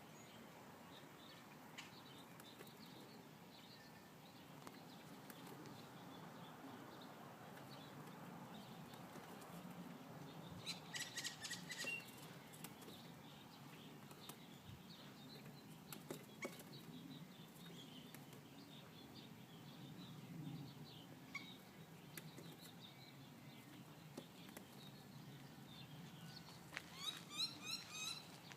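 Faint bird sounds from a bird fighting its own reflection in a mirror. About eleven seconds in there is a short burst of fluttering and tapping, and near the end a quick run of about six falling chirps.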